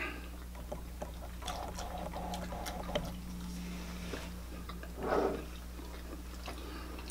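Quiet eating sounds: soft chewing and small mouth and finger clicks over a steady low electrical hum, with a brief hummed murmur of a voice about two seconds in.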